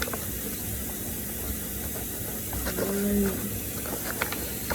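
Kitchen tap running into the sink as a pan is washed by hand, with a few light knocks near the end.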